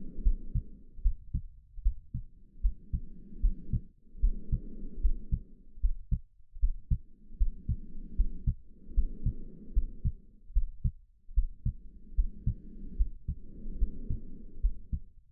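Muffled heartbeat, a steady run of paired low thumps, over slow breathing. Each breath in and out is a soft, low whoosh lasting about two seconds, with brief pauses between them.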